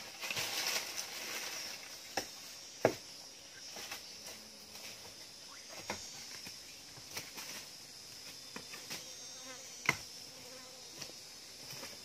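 Steady high-pitched buzzing of a rainforest insect chorus, with a few sharp knocks and clicks from handling, the loudest about three seconds in and another near ten seconds.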